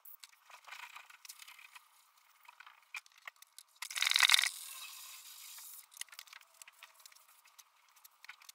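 Hands rubbing and wiping across a wet painted car panel during wet flatting with 1200-grit paper: light scattered scrapes and rubs, with one louder, longer scrape about four seconds in.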